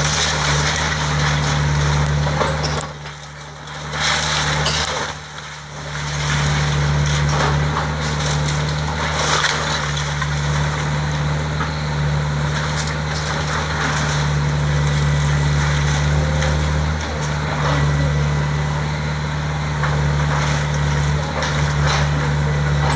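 John Deere tracked excavator's diesel engine running steadily while its arm tears into a wood-frame house, with the cracking and crunching of splintering framing and falling debris.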